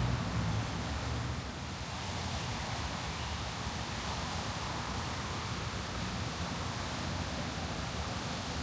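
Steady outdoor background hiss with no distinct event; a low rumble fades out over the first couple of seconds.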